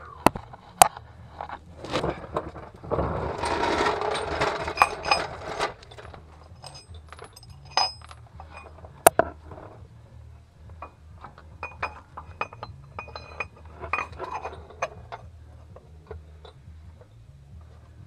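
Hand tools and metal parts clinking and tapping while a truck's front suspension is reassembled: scattered sharp metal clicks, with a denser stretch of scraping and rattling from about three to five seconds in.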